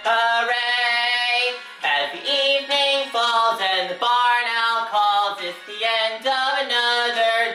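Singing over backing music.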